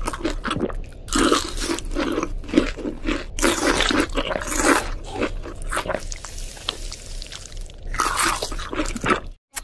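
Cartoon eating sound effects of crunching bites and chewing on a fried chicken drumstick, a quick run of short crunchy bites.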